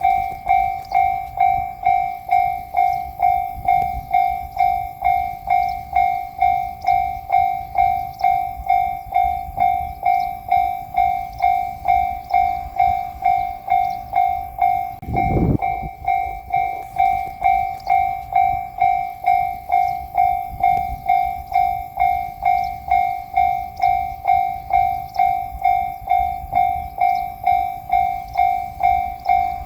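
Japanese railway level-crossing alarm ringing its repeating "kan-kan" two-tone ding, about two strikes a second, each strike fading quickly. A brief low thump comes about halfway through.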